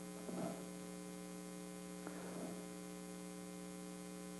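Steady electrical mains hum in the sound system, a low tone with many overtones. A faint rustle comes about half a second in, and a faint click and rustle about two seconds in.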